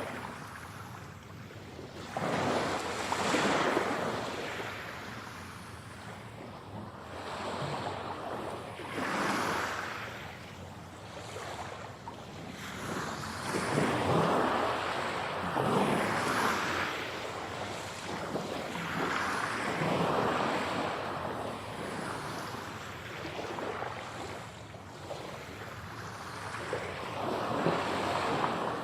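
Ocean waves breaking and washing up a shore, each wave swelling and then falling away, several seconds apart.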